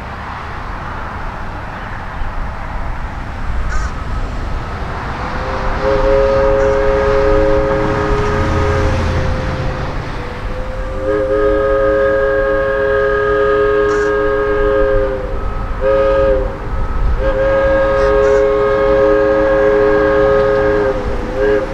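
Diesel locomotive's multi-note air horn sounding the grade-crossing signal: two long blasts, a short one and a final long one. Under it runs the rumble of the approaching train, growing louder before the first blast.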